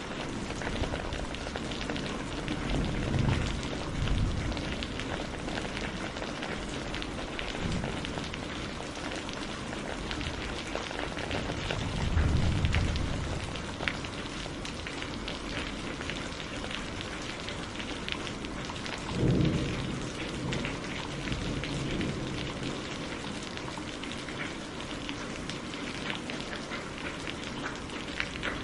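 Wood campfire crackling and popping steadily, with many sharp snaps. Three times a brief low swell rises under the crackle, about three seconds in, near the middle and about two-thirds through.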